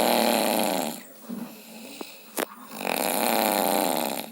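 A person snoring loudly: two long, rasping snores, one fading about a second in and the next starting near three seconds, with quieter breathing between.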